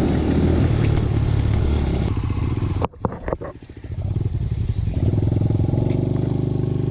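Enduro dirt bike engine running under throttle, easing off about two seconds in and dropping away almost to nothing for a moment with a few short knocks, then picking up again and running steady.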